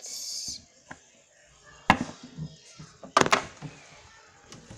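Handling knocks: a short rustle at the start, then a sharp knock about two seconds in and a louder cluster of knocks a little after three seconds.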